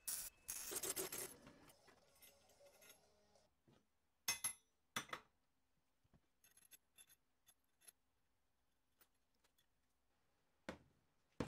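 Welding arc crackling for about a second and a half, then sharp metallic clinks and knocks as the steel parts of a homemade sheet-metal bender are handled and clamped in a bench vise: two near the middle, a few faint ticks, and two more near the end.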